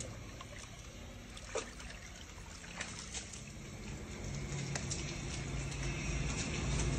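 Water trickling from a tap into a stone basin, with a few short splashes as a wet golden retriever puppy climbs out.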